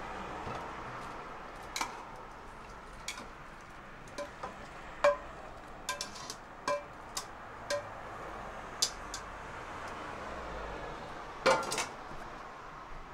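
Eating utensils clinking against dishes and bowls: about a dozen light knocks, each with a short ring, the sharpest about five seconds in and a quick cluster near the end, over steady background noise.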